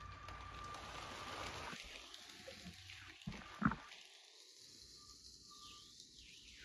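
Faint running of a motorised Lego train: its motor and its wheels rattling over plastic Lego track and switches, with a sharp click a little over three and a half seconds in.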